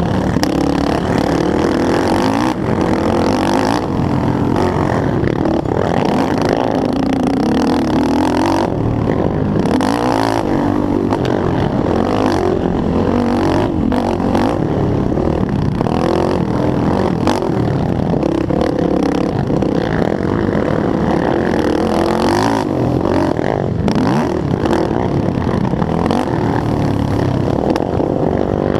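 Race quad's engine, a Yamaha YFZ450R, at racing speed, its pitch rising and falling over and over as the throttle is worked through the turns and gears. Short knocks come through now and then.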